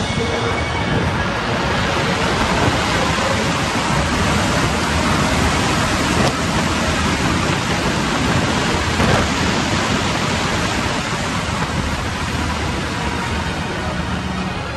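Steady, even rushing of wind, loud enough to drown out the ride's music.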